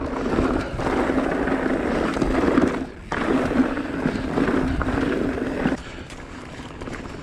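Mountain bike rolling fast over a rocky trail: continuous tyre noise and rattling of the bike over rocks. It breaks off briefly about three seconds in and quietens near the end.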